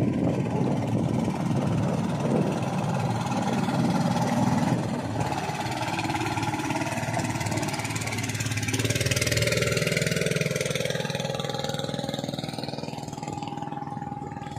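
Small engine of a motorized bamboo outrigger boat running steadily, its tone shifting about two-thirds of the way through, with water sloshing around the hull.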